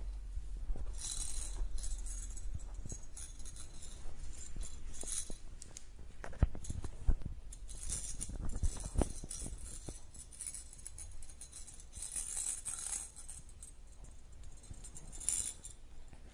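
A plastic cat-toy ball with loose beads inside, jingling and rattling in short bursts as kittens bat it about, with a few sharp knocks of the ball against the floor about six to nine seconds in.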